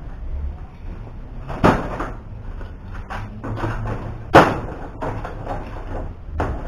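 Steel C-clamps being handled and set down against a metal workbench and clamped rods as a second clamp is fitted: two sharp knocks, the second louder, among lighter clicks and rattles.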